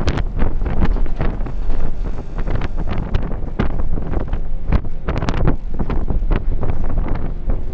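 Strong gusty wind blowing straight onto the microphone, a heavy low rumble with frequent irregular crackles and pops.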